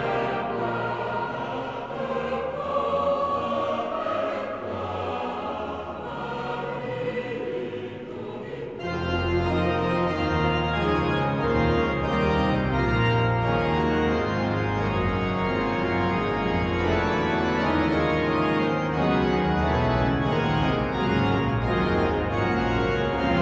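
Sacred choral music: a boys' choir with pipe organ. The organ plays softly at first, and at about nine seconds the sound turns suddenly fuller, with deep bass notes under sustained chords.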